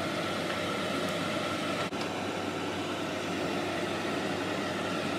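Steady hum and hiss of kitchen background noise with a faint high tone running through it, briefly dropping out about two seconds in.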